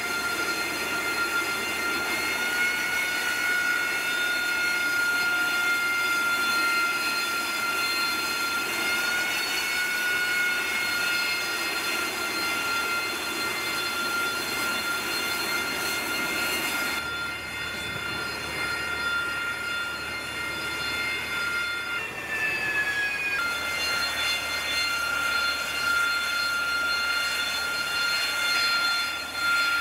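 Harrier jump jet's Rolls-Royce Pegasus turbofan running at low power on deck: a steady high whine with several held tones over a rushing noise. About three-quarters through, the whine briefly slides down in pitch before settling back.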